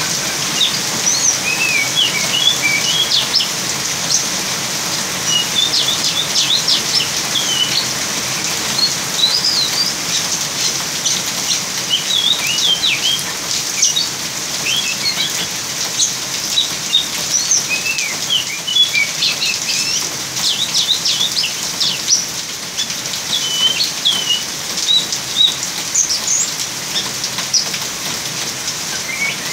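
A young oriental magpie-robin chirping and twittering in scattered bursts of short, high notes over the steady hiss of heavy rain.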